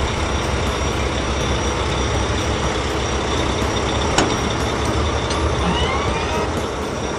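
Cartoon heavy-truck engine sound effect running steadily with a loud low rumble. A sharp click comes about four seconds in, and a short rising chirp near six seconds.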